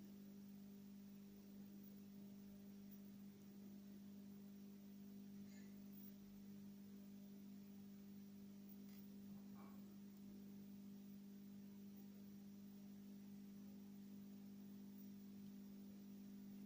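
Near silence: room tone with a faint steady low hum and a few very faint small ticks.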